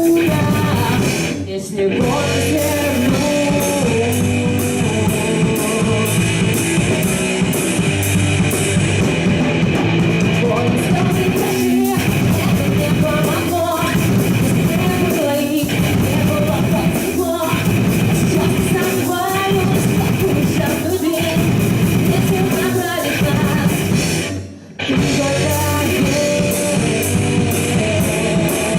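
Rock band playing live, with a singer over distorted guitars and a drum kit. The band cuts out for a moment twice: about a second and a half in, and again near the end.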